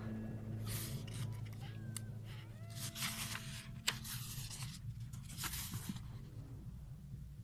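Paper pages of a manga magazine being handled and turned, in three short rustling swishes about a second in, about three seconds in and near six seconds, with a sharp tap of the paper just before four seconds.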